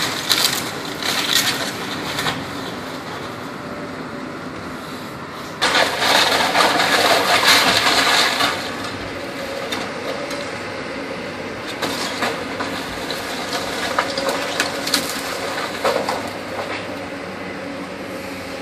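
Case excavator's engine running as its bucket tears into a brick house, with wood and debris cracking and crashing. A loud crash of falling debris lasts about three seconds from about six seconds in, with scattered cracks and knocks before and after it.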